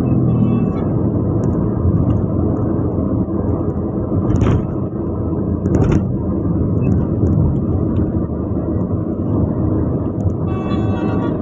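Steady rumble of road travel in a moving vehicle, broken by two short sharp knocks about four and a half and six seconds in.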